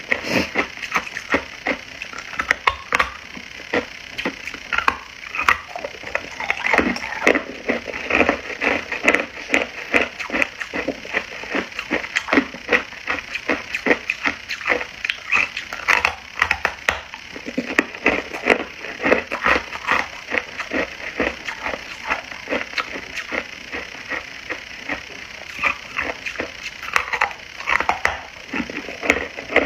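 Hard ice being bitten and chewed close to the microphone: a dense, irregular run of sharp crunches and cracks as the chunks break between the teeth.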